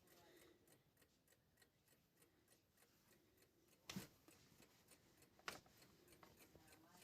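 Near silence with faint, fast, even ticking, and two sharper clicks, about four seconds in and a second and a half later.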